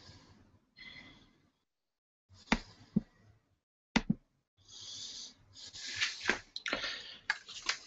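Soft breathing noise on the microphone, then three sharp clicks about half a second to a second apart, followed by rustling and a run of further clicks as a screen share is started on the computer.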